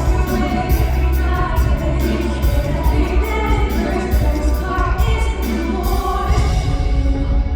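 Live pop song: a woman singing over a band track with heavy bass and a steady drum beat, through a concert hall's sound system. The drums drop out near the end.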